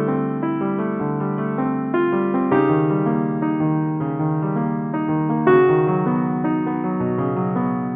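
Background music: soft piano, sustained chords with a few new notes struck at a slow pace.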